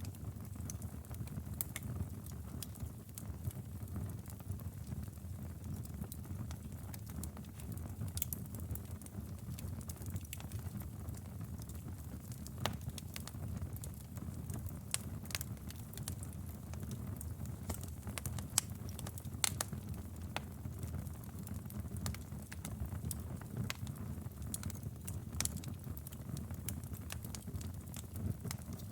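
Wood fire in a fireplace burning with a steady low rumble, crackling and popping irregularly throughout.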